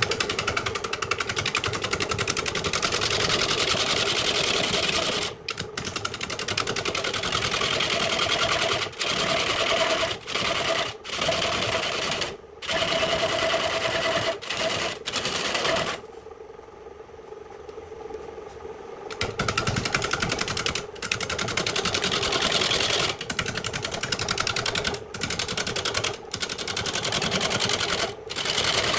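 Wood lathe running with a turning tool cutting into the spinning wood, a dense rasping cut over the steady hum of the motor. The cut stops for a moment many times and eases off for about three seconds past the middle, as the tool leaves the wood between passes.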